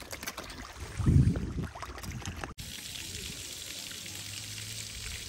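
Water pouring over a small concrete weir into a pond, a steady splashing wash that starts abruptly about halfway through. Before it, a brief low rumble about a second in.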